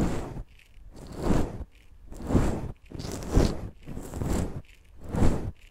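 Bristles of a shaving brush stroked across the grilles of a TASCAM TM-2X stereo microphone's capsules for ASMR, giving a close, scratchy rustle. The strokes come about once a second, each swelling and fading, six in all.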